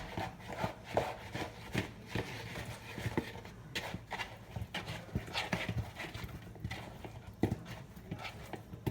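Chicken wings being stirred slowly in a bowl with spices: a string of uneven soft knocks and clacks, a few a second.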